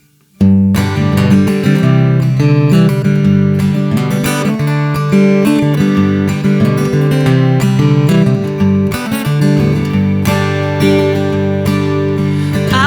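Acoustic guitar strumming chords in a steady rhythm, the instrumental intro of an Americana song, starting abruptly about half a second in.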